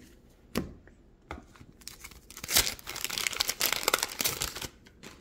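Wax paper wrapper of a 1987 Donruss baseball card pack being torn open and crinkled by hand, with a single sharp click about half a second in and the crackling loudest in the second half.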